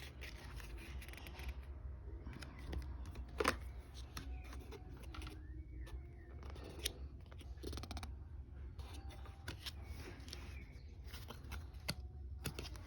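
Cardboard pages and flaps of a lift-the-flap board book being handled and opened, giving scattered soft clicks and rustles.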